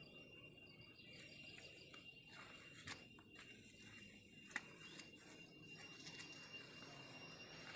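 Near silence: faint outdoor background with a thin, steady high tone and a few soft clicks.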